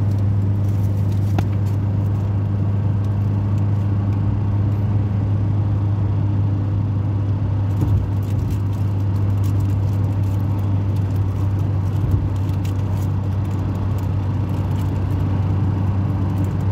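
Car driving at highway speed, heard from inside the cabin: a steady low drone of engine and road noise.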